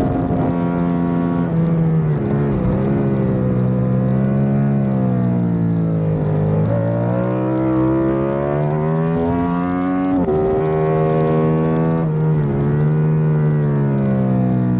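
Onboard sound of a Yamaha YZF-R7's parallel-twin engine at racing speed, revving up and down through the gears. The pitch climbs steadily and drops sharply at shifts, most clearly about ten seconds in, with unsettled dips around two seconds in and again near the end.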